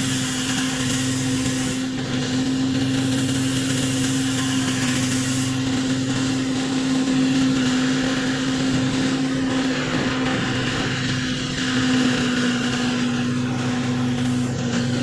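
Pressure washer's engine running steadily under load, with the hiss of the high-pressure water spray over it.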